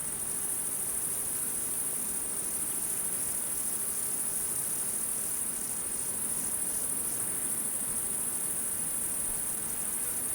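Crickets chirping in a continuous high-pitched trill, steady throughout.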